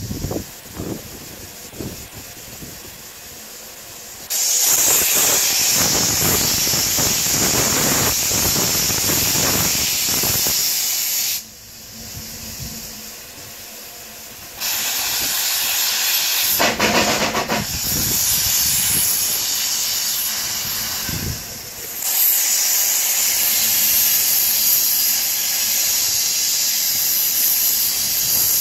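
Steam hissing from the cylinder drain cocks of a single Fairlie narrow-gauge steam locomotive as it works to start a heavy slate train. The hiss comes and goes in long spells, dropping away twice and loudest near the end.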